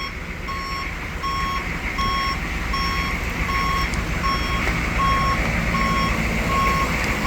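Chevrolet 6.5 L V8 diesel running rough just after a cold start, with a steady low rumble. Over it an electronic alarm beeps evenly, a short high tone about every three-quarters of a second.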